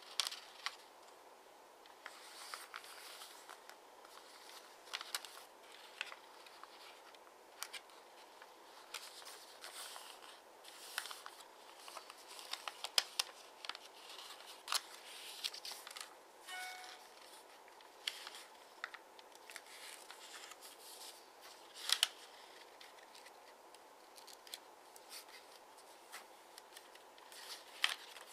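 Double-sided origami paper being folded and creased by hand: scattered crisp crackles and rustles of the paper, with a few sharper snaps, the loudest about 13 and 22 seconds in.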